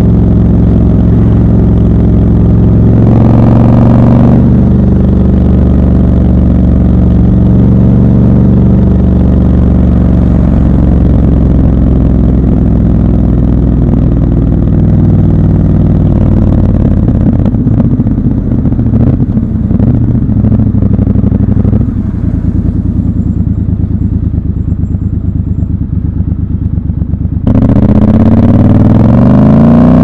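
Triumph Scrambler 1200 XC's 1200 cc parallel-twin engine running under way, with a brief rev about three seconds in. Around the middle it drops to a lower, uneven note, then rises sharply as the bike opens up and accelerates near the end.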